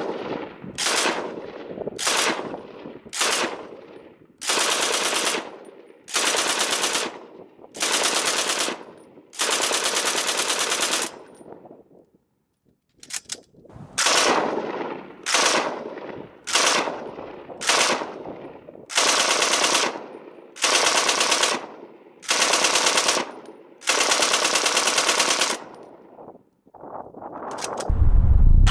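Model 1914 Lewis gun firing .303 British on full auto in a string of short bursts, some only a few rounds and others about a second long, each trailing off in echo. There is a short pause about twelve seconds in before the bursts resume.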